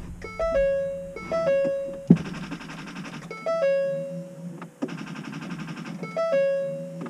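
Repeating electronic tones: a short run of stepped notes ending on a held note, heard several times, with two buzzy stretches of about a second between them and a single sharp click about two seconds in.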